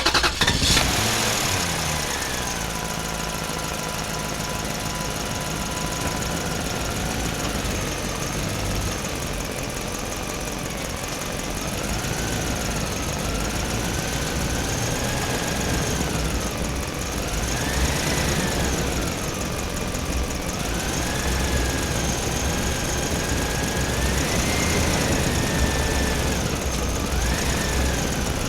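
A motor engine running steadily, its pitch rising and falling every few seconds as the revs go up and down.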